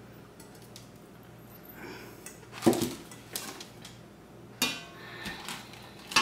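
Glass bowls knocking and clinking as they are handled and set down, about four knocks. The last two leave a short glassy ring.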